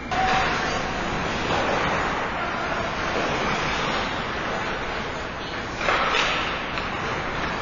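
Ice hockey rink during play: a steady, echoing wash of skates scraping on the ice, with a louder rush of noise about six seconds in.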